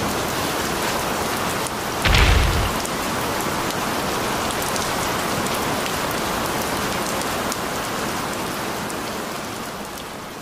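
Steady heavy rain, with one loud low boom about two seconds in, and fading out near the end.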